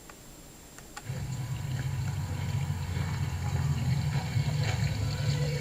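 A steady low rumble with a watery hiss over it, from a replayed outdoor recording, starts suddenly about a second in and carries on.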